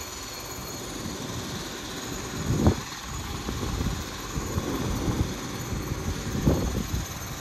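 Railway platform ambience: a low, uneven rumble with two louder thumps, about two and a half and six and a half seconds in.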